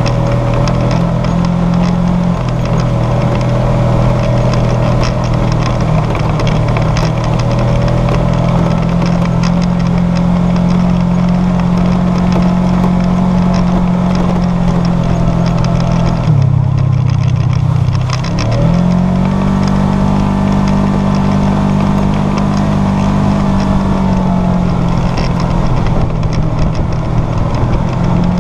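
Side-by-side UTV engine running at a steady cruising speed. About two-thirds of the way through it drops off as the throttle is let go, then climbs back up and settles at speed again.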